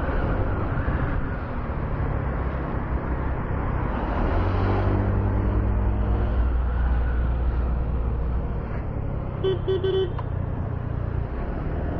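Motorcycle engine running with road and wind noise while riding in traffic, the engine note growing stronger from about four seconds in. Near the end, a horn gives three quick short toots.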